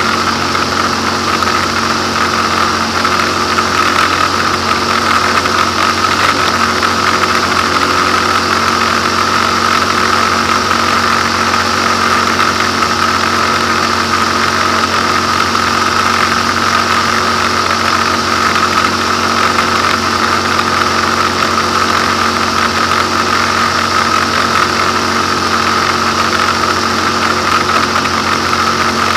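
Light aircraft's piston engine and propeller running steadily at a constant pitch in cruising flight, heard inside the cockpit.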